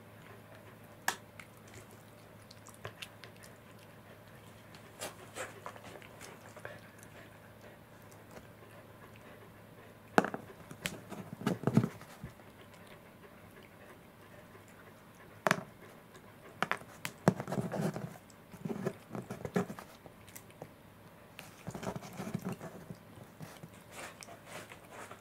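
Domestic cat chewing and licking at a small treat held in a person's fingers: several short bouts of wet mouth sounds and clicks, the busiest about ten to twelve seconds in and again from about seventeen to twenty seconds in, with quiet gaps between.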